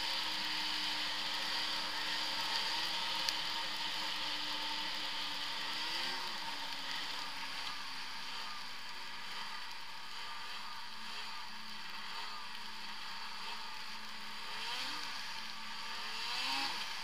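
2016 Arctic Cat ZR 6000 El Tigre snowmobile's 600 cc two-stroke twin running while riding at a steady pace, its pitch holding and then easing slightly lower. There are short rises and falls in engine pitch about six seconds in and twice near the end.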